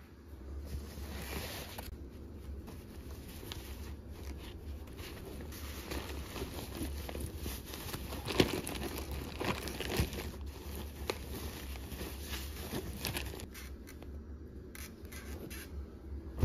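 Hands packing diapers and cloth diapers into a canvas tote bag: irregular rustling and crinkling of fabric and packaging, with a few sharper knocks, the loudest about eight and ten seconds in, over a steady low hum.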